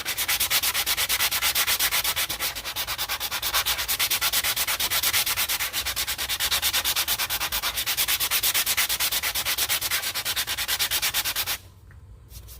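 Power sander with 80-grit sandpaper grinding down a boat's nonskid deck surface, a continuous scratchy rasp with a fast, even pulse. It cuts off about a second before the end.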